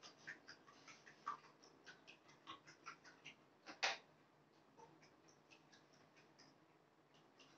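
Faint, irregular light ticks and small water sounds from plastic bath toys being moved around a plastic basin of water, with one sharper click about four seconds in.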